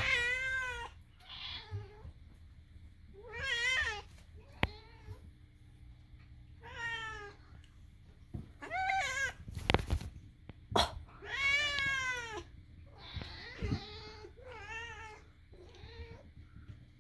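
Domestic cat making a string of about ten odd meowing calls with short pauses between them, the pitch wavering up and down within each call. A few sharp knocks come in between.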